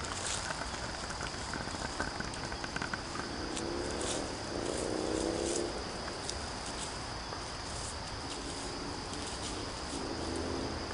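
Insects chirring steadily in the woods, with footsteps swishing and crackling through tall grass and brush. A faint pitched hum rises about four seconds in and comes back near the end.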